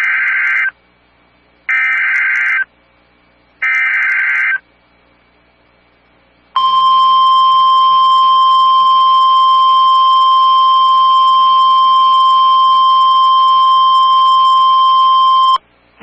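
NOAA Weather Radio Emergency Alert System activation: three short data bursts of the SAME header, then about six seconds in the steady 1050 Hz warning alarm tone, which sounds for about nine seconds and cuts off sharply. It signals a flash flood warning.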